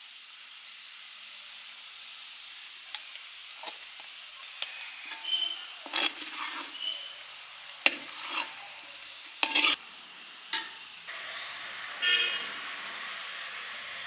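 Chicken pepper roast sizzling in a large steel pan while a long steel spoon stirs and scrapes it. The spoon knocks and scrapes against the pan in a run of sharp clicks from about three to ten seconds in, and the sizzle gets a little louder after that.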